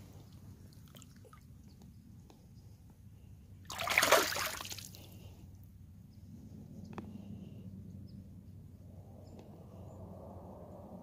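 Shallow water splashing as a largemouth bass is released by hand: one short, loud splash about four seconds in, with faint sloshing and trickling around it.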